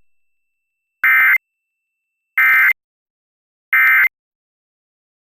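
Emergency Alert System end-of-message signal: three short bursts of digital data tones, evenly spaced about a second and a quarter apart, marking the end of a required monthly test.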